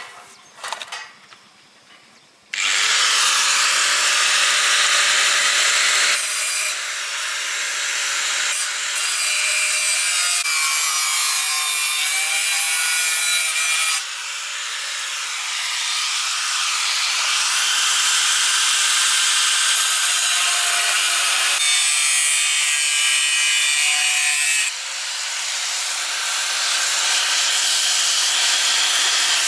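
An angle grinder starts up and grinds or cuts into steel bar in long continuous passes, a loud high-pitched rasping noise that eases briefly several times as the disc's load changes. A couple of light clicks of metal come just before it starts.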